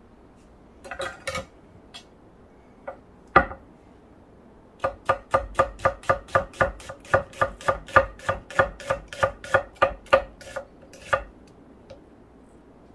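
Kitchen knife slicing a red onion on an end-grain wooden cutting board: a quick, even run of cuts, about four a second, each ending in a knock of the blade on the wood. A few light clicks and one sharper knock come before the run.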